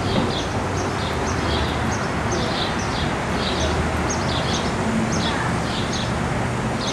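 A bird calling over and over in short, high, downward chirps, about two a second, over a steady outdoor background hiss and low hum.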